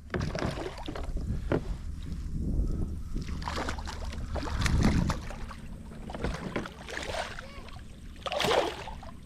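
Scattered knocks and clicks of gear and paddle against a fishing kayak's hull, with heavier bumps a couple of times and a burst of water noise near the end.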